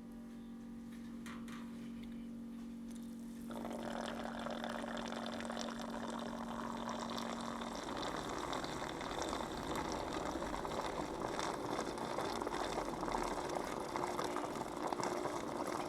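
Bilge water-removal system running: a small pump's steady hum, then from about three and a half seconds in, water flowing and gurgling as residual bilge water is drawn out.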